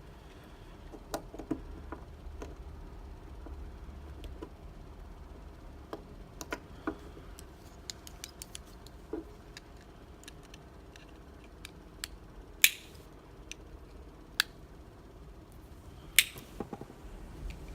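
Tools clicking and scraping against a Medeco lock cylinder while a circlip is worked off: scattered light ticks, with two sharp, louder clicks in the second half.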